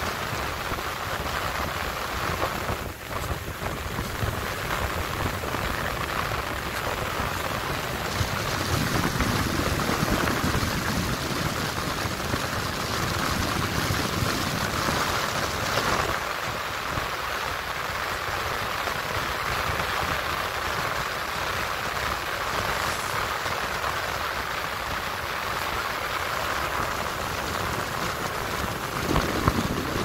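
Steady rush of a large volume of air moving through a commercial VAV box and its ductwork, loud enough to drown out other sounds, with a brief knock near the end.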